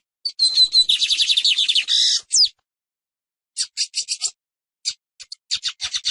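Lined seedeater (Sporophila lineola) singing: a fast run of high, sharp notes lasting about two seconds that ends in a quick falling note, then after a pause shorter bursts of rapid notes.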